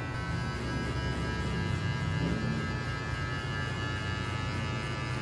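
Cordless electric hair clippers running with a steady buzz during a fade haircut.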